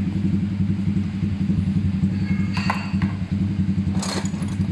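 A small engine running steadily in the background with a rapid, even throb, while metal parts clink briefly about two and a half seconds in and rattle again near the end.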